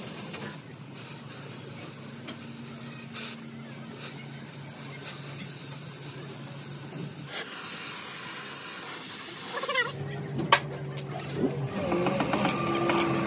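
Oxy-fuel gas torch flame hissing steadily as it heats the steel plate of a crane boom, over a low steady engine hum. From about ten seconds in, a few sharp metallic clicks and knocks.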